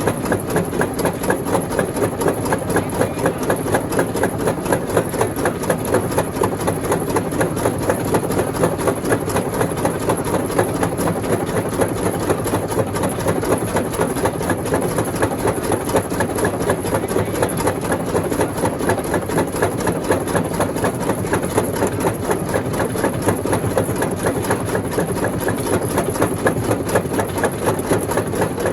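Rock crusher machine running steadily with an even, rhythmic pulse about three to four times a second.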